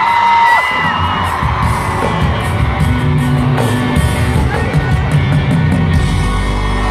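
Live pop-rock band playing at a concert, drums and bass driving, with voices singing and the crowd yelling and screaming. About six seconds in the drumming stops, leaving a low held note.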